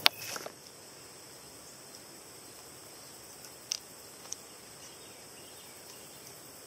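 Footsteps brushing through grass in the first half-second, then a steady thin high drone of evening insects, with two short high chirps around the middle.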